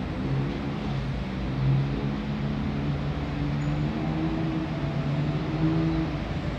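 A low, steady motor hum whose pitch drifts slowly up and down, over a low rumble.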